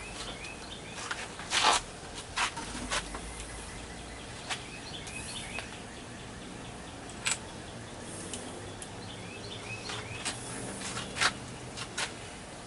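Scattered knocks and clicks, about seven in all and irregularly spaced, over a steady low background, with faint bird chirps behind.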